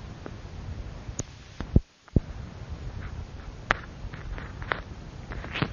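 Background hiss and low hum of an old voice recording, with a few scattered small clicks. The sound drops out completely for a moment about two seconds in.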